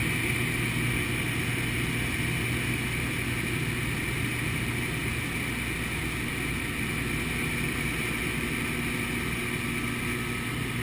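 A light jump plane's engine and propeller running steadily during the climb, heard from inside the cabin as a constant drone with a low hum.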